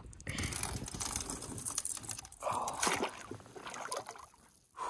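A fish thrashing at the water's surface, splashing and sloshing, loudest about two and a half seconds in.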